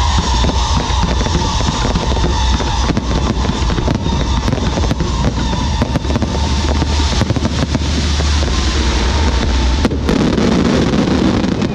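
Close-range fireworks barrage: comets and aerial shells launching and bursting in quick succession, a loud, dense crackling with a deep rumble underneath that drops away about ten seconds in.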